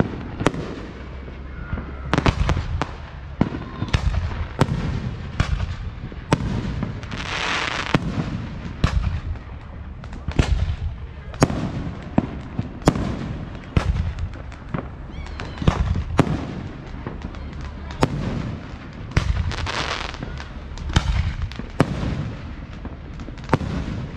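Aerial fireworks shells bursting in an irregular string of sharp bangs, one or two a second. A hissing crackle swells up about a third of the way in and again near the end.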